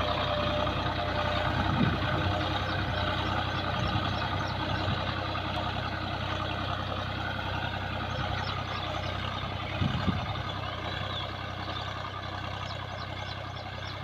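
Tractor diesel engine running steadily, with a constant low hum, and two brief low thumps, one early and one about ten seconds in.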